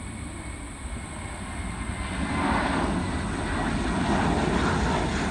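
Twin jet engines of a Spirit Airlines Airbus A320-family airliner at takeoff thrust, a rushing roar that swells about two seconds in and stays loud as the jet climbs out.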